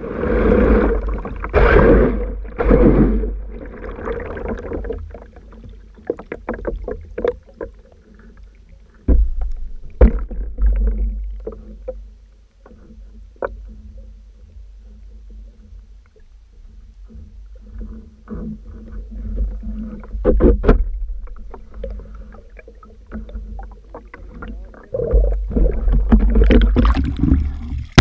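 Underwater sound from a BlueROV2 remotely operated vehicle: a low rumble with a faint steady hum from its thrusters, broken by scattered knocks and clicks. The water noise grows louder in the last few seconds as the vehicle comes up at the surface.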